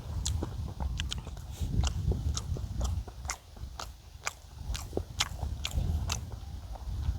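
A person chewing a mouthful of rice and kimchi stew close to the microphone, with wet mouth clicks about two a second. Wind rumbles low on the microphone underneath.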